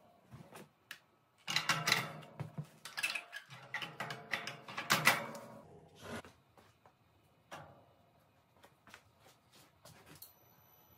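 Metal clattering and knocking as a copy-turning jig carrying an angle grinder is handled and set onto a wood lathe's bed and threaded rod. There are two busy stretches of clanking with some ringing, then a few faint single knocks; the grinder is not running.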